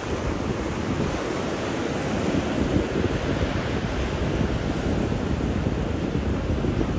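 Ocean surf washing ashore, with wind buffeting the microphone.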